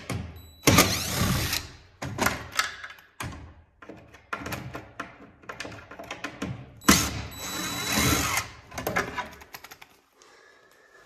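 Cordless impact driver backing out the mounting screws of a wall-mounted towel dispenser, running in short bursts. The two longest runs, about a second in and about seven seconds in, carry a high whine.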